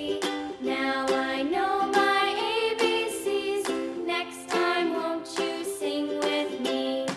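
Cheerful children's background music with plucked ukulele-like notes and a melodic line.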